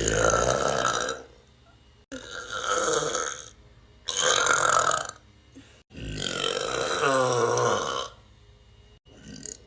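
A person burping, a run of separate burps one after another: four long ones and a short one near the end. The fourth is the longest, about two seconds.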